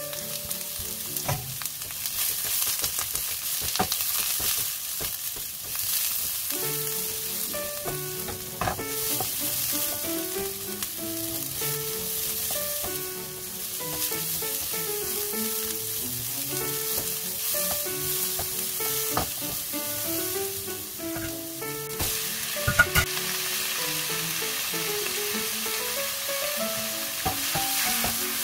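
Sliced onion, carrot and garlic sizzling in hot oil in a nonstick wok, stirred and scraped with a spatula. A single sharp knock comes near the end.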